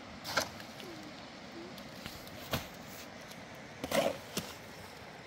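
Steel shovel chopping and scraping wet mortar in a metal wheelbarrow: a few separate sharp clanks and scrapes, the loudest cluster about four seconds in.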